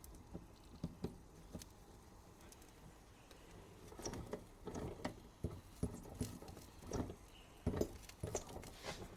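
Faint, irregular clicks and taps from a Mamod TE1A toy steam engine as steam pressure builds and the piston starts to stir, before it runs steadily. The clicks come sparsely at first and more often from about halfway through.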